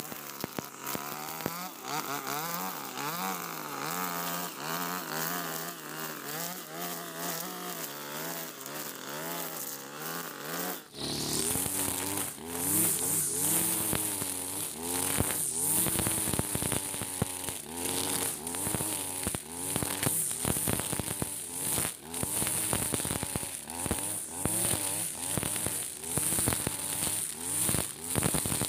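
Husqvarna 542RBS 42cc two-stroke backpack brush cutter running with a 2.4 mm nylon-line trimmer head, its engine pitch rising and falling as it cuts short grass. About 11 seconds in the sound changes abruptly to a stronger, higher whir of the line through the grass.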